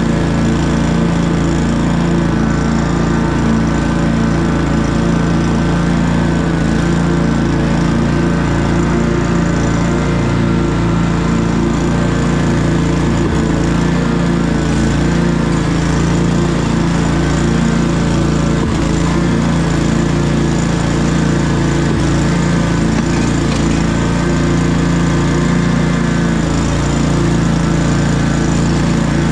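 Commercial walk-behind lawn mower's engine running steadily under load as it mows grass, an even, unbroken drone with no change in speed.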